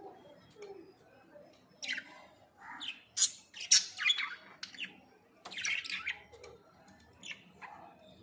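Pet parakeet giving a series of short, shrill calls, several in a row, loudest about three to four seconds in.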